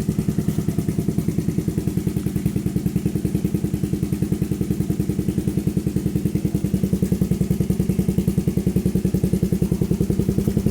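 Suzuki QuadSport LT-Z90 ATV's small single-cylinder engine idling steadily just after a cold start, running through a Big Gun Mini full exhaust with an even, rapid putter.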